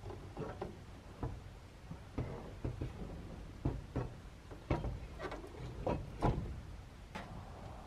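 A series of irregular knocks and clicks, about fifteen to twenty of them, as the cap is worked loose on the pickup's bed.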